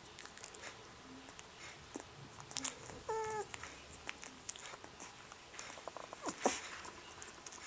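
18-day-old rough collie puppies making small sleep noises: a short whimper about three seconds in and a sharper squeak a few seconds later, among scattered small clicks.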